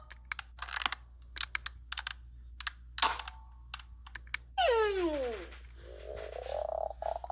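Scattered sharp clicks and taps, then a pitched sound that glides down about four and a half seconds in, followed by a hummed tone near the end, from a child humming.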